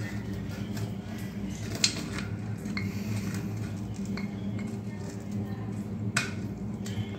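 Scattered metallic clicks and clinks as a chrome basin mixer tap and its braided flexible supply hose are pulled up through the tap hole of a ceramic wash basin. The loudest knock comes about six seconds in, over a steady low hum.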